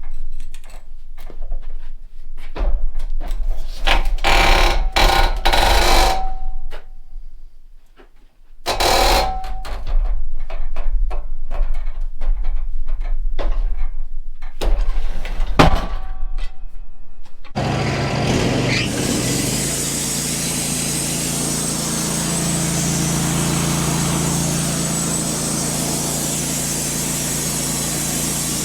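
Irregular knocks and clatter of work at the sawmill, then about two-thirds of the way in the Wood-Mizer LT15 portable band sawmill starts up and runs steadily.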